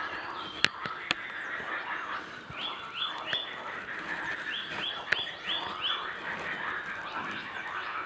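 A dense spring mating chorus of frogs, many croaking calls overlapping without a break, with short runs of quick, higher rising calls about three seconds in and again around the middle. A few sharp clicks cut through.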